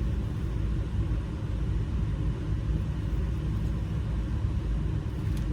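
A steady low rumble, even throughout, with no distinct knocks or clicks standing out.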